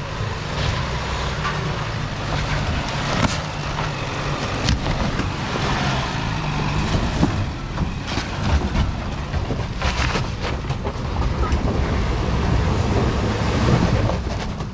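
Four-wheel-drive vehicle engine running with a steady low rumble as it crawls over a rough off-road track, with repeated sharp knocks and clatters throughout.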